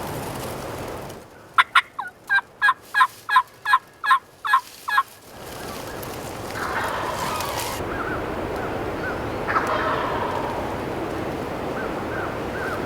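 Wild turkeys calling: a loud run of about eleven sharp, falling notes, roughly three a second, then fainter gobbling over steady wind noise.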